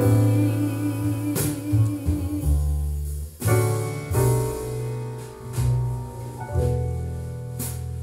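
Music played back through JBL Studio 280 floorstanding speakers and picked up by a microphone in the room. It is an instrumental passage of a jazz ballad between sung lines, with sustained notes and a few sharp strokes.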